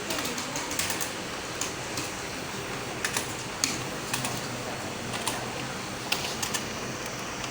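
Computer keyboard being typed on at an unhurried pace: single key clicks at uneven intervals, a few a second, over a steady background hiss.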